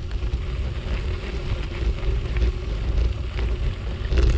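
Steady rush of wind on the microphone with the tyre noise of a bicycle rolling along a sandy gravel path, and light rattles.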